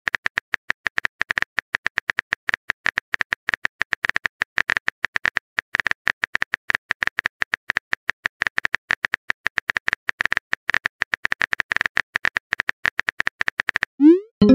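Phone keyboard typing sound effect: rapid, uneven clicks, several a second, as a text message is typed out, followed near the end by a short rising whoosh as the message is sent.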